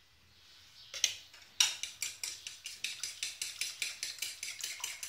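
A metal utensil clinking fast and evenly against a dish, about five strikes a second, as in stirring or beating. Two single knocks come first.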